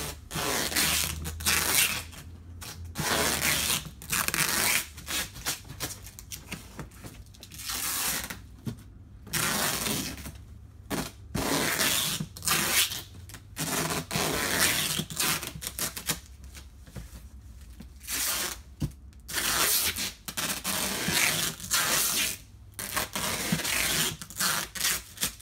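Packing tape pulled off the roll in repeated strips, each rip lasting up to about a second with short pauses between, and pressed down onto the cardboard wrapping of a lampshade with rubbing and scraping of the cardboard.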